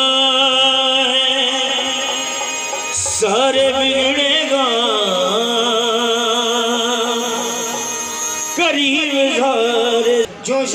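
Live South Asian music: a harmonium holding sustained notes, joined about three seconds in by a man singing long, ornamented, wavering phrases, heard through a PA system. The sound breaks off sharply for a moment near the end.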